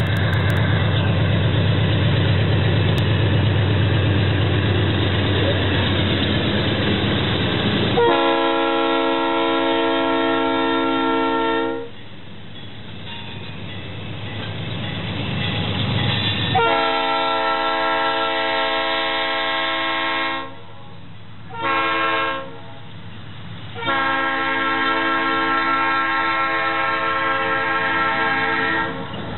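Diesel freight locomotives passing close, engines running with a heavy low rumble. About eight seconds in, the lead locomotive's air horn sounds a chord of several tones in two long blasts, one short and one long: the grade-crossing signal.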